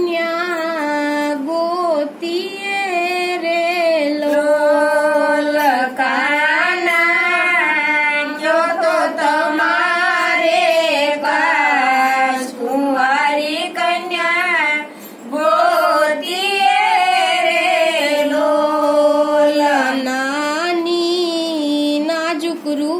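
Women singing a Gujarati devotional bhajan, one melody line without instruments, with short breaths between phrases.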